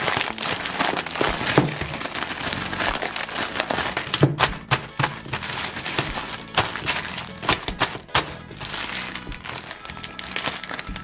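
Clear zip-top plastic bag crinkling and crackling as hands squeeze and turn it, with many sharp irregular crackles. Music plays underneath.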